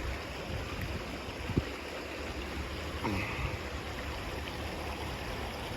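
River water rushing steadily over rocks, with a single short knock about a second and a half in.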